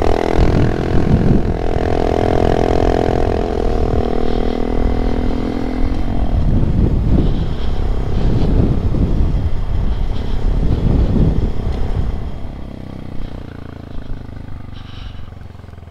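Honda Monkey 125's single-cylinder four-stroke engine under way, first holding a steady note, then rising and falling in pitch several times as it changes speed. It drops lower and quieter for the last few seconds as the bike eases off.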